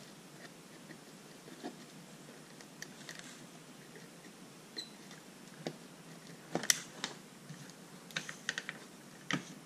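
Scattered light clicks and small crackles as a hot soldering gun tip works melted aspirin on an enamel-coated motor wire to strip the coating, with a sharper click about two-thirds of the way through and a quick run of clicks near the end.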